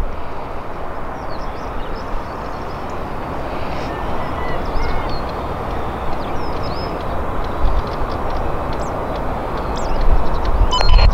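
Cessna 560XL Citation XLS business jet on final approach, its twin Pratt & Whitney PW545 turbofans making a steady rushing noise that grows louder near the end as it closes in.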